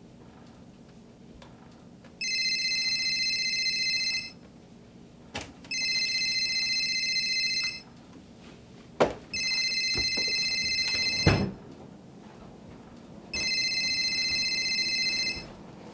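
Telephone ringing: four rings of about two seconds each, a second and a half apart. A few sharp knocks fall between the rings, the loudest about nine and eleven seconds in.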